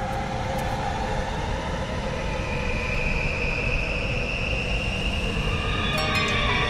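Dark ambient horror-film drone: a steady low rumble with sustained tones held over it, a higher tone joining about two seconds in, and a few faint ticks near the end.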